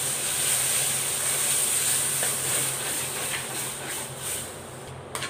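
Milky liquid poured into a hot wok of sautéed salted egg yolk, hissing and sizzling loudly as it hits the pan, then dying down about four seconds in. A couple of light clicks come near the end.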